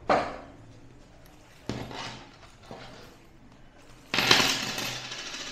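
A thump of a hand or body against a wooden table, then a couple of handling knocks, and from about four seconds in the loud rasp of a zipper being pulled open around a black zip wallet.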